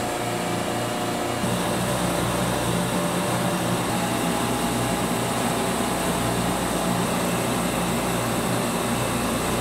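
Steady hum and whir of refrigeration machinery running in a machine house, with a low even drone under a wash of fan-like noise. It grows a little louder about a second and a half in.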